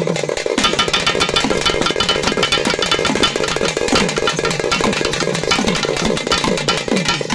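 A street band of shoulder-slung barrel drums playing fast and steadily, with dense rapid strokes over deep strokes that drop in pitch a few times a second, and a steady metallic ringing on top.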